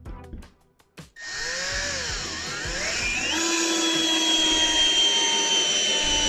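Milwaukee M12 BDD cordless drill driver driving a large wood screw, about the biggest it is rated for, into a wooden block. About a second in the motor starts with a whine that dips and then rises in pitch, then holds a steady high whine under load without stalling.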